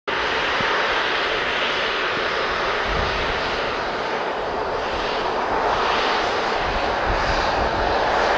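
Boeing 737-500's twin CFM56-3 turbofan engines at takeoff power during the takeoff roll: a loud, steady jet roar.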